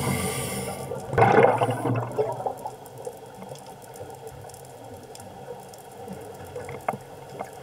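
Underwater sound of a scuba diver's exhaled bubbles rushing from a regulator about a second in. A faint underwater hiss with scattered small clicks follows.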